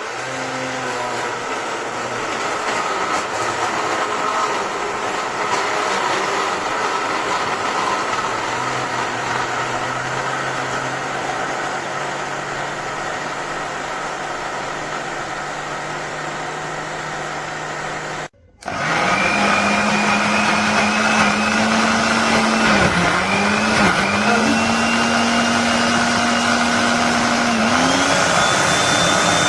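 Tefal Blendforce II 600 W jug blender motor running steadily. It cuts out for a moment about 18 seconds in, then starts again with a higher, louder hum. The pitch dips twice briefly a few seconds later and rises near the end.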